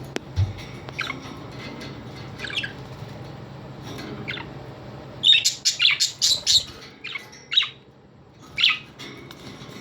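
Pet parrots chirping and squawking: a few single calls, then a quick run of loud calls about halfway through, and a few more calls after it.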